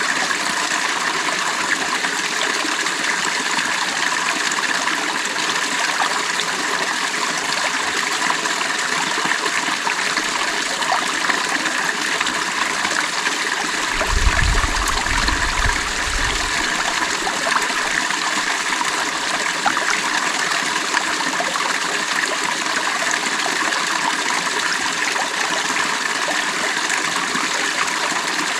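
Creek water running over stones, a steady, even rush and trickle. A brief low rumble comes about halfway through.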